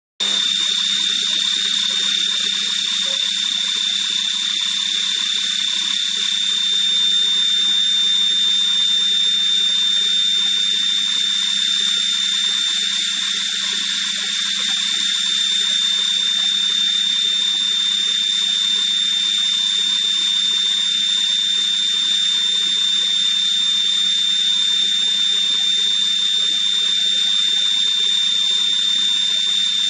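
Leadwell VE vertical machining centre running: a steady high-pitched whine over a loud hiss, with a low hum underneath and faint irregular crackling.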